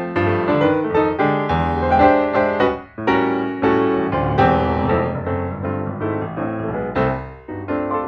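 Piano music soundtrack, many notes struck in quick succession, with two short breaks: about three seconds in and shortly before the end.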